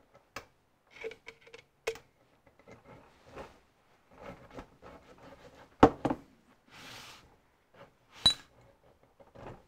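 Small steel parts and tools clicking, knocking and clinking against a machinist's dividing head and workbench during assembly. There is a loud knock a little past halfway, a short hiss soon after, and a sharp ringing metal clink near the end.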